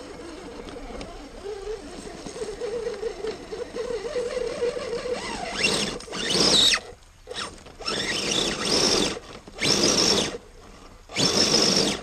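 Radio-controlled crawler truck's electric motor and gear drivetrain whining under load as it crawls over tree roots. A wavering whine runs for the first few seconds, then turns into louder bursts that start and stop, about four in the last six seconds.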